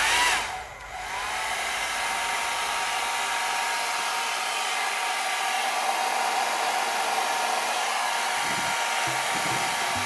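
Xiaomi Mi Ionic hair dryer (CMJ01LX3) running in its alternating hot-and-cold mode: a brief surge of air at the start, then a steady blowing rush with a faint steady whine from about a second in.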